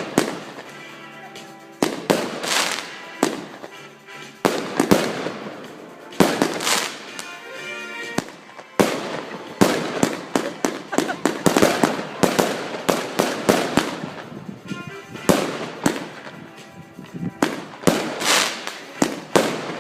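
Fireworks display: aerial shells bursting one after another in quick volleys of sharp bangs and crackles, with only short gaps between them.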